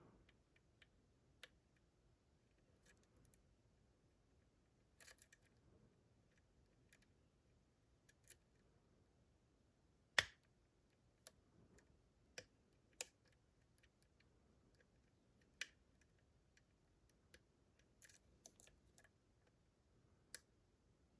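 Faint, scattered metallic clicks as a pick works the pins of a Dorma DC500 pin-tumbler lock cylinder while chasing tapered pins. There are about a dozen irregular clicks, with one much louder click about ten seconds in.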